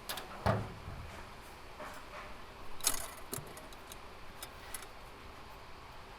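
Small metal parts being handled, clinking and knocking: a dull thump about half a second in, a burst of sharp clinks around three seconds, then a few light ticks.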